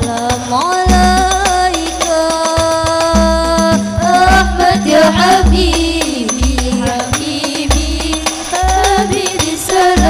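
Women's voices singing a devotional banjari song into microphones, with long held, wavering notes, over hadrah frame drums (rebana) beating deep bass strokes about once a second, all amplified through a PA sound system.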